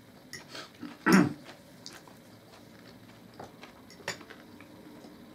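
Cutlery clicking and scraping on plates while eating, a few scattered clinks, with one louder short noise about a second in.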